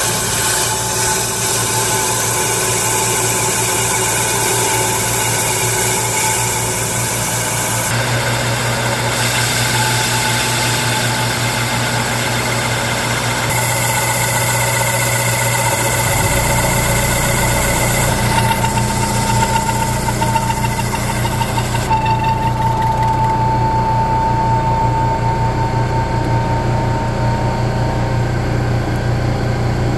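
Manual metal lathe running with a steady motor hum and whine, turning a block of foam as the cutting tool shapes it into a dumbbell. A high hiss drops away about three quarters of the way through while the hum carries on.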